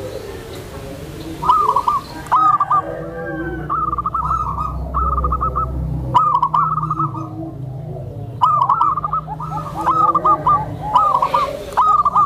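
Zebra doves (perkutut) cooing: repeated short phrases of quick, bouncing notes that often overlap, with softer lower coos beneath and a steady low hum under them.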